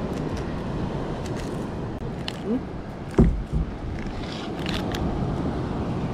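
Nylon gill net rustling and scraping in the hands as a large fish is worked free of the mesh, a scatter of small clicks over a steady low background rumble, with a single thump about three seconds in.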